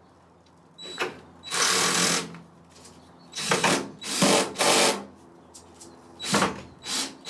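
Cordless drill driving the tailgate panel screws home in about six short spurts, each under a second, with pauses between them.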